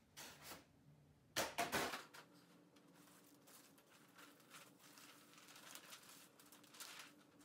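Faint rustling and handling of wrapping paper, with a louder crinkle about a second and a half in, then small scattered paper and table noises.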